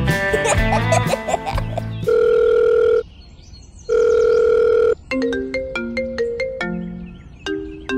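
Music with guitar that ends about two seconds in, followed by two steady one-second electronic beeps a second apart, like a telephone ring tone. Then a short tune of quick, bright electronic notes, like a ringtone.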